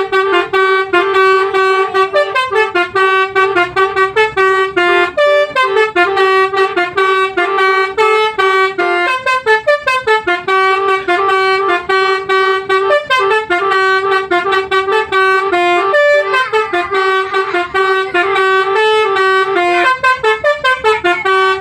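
Basuri V3 telolet multi-tone bus horn playing a tune, loud, in quick stuttering toots that step from note to note.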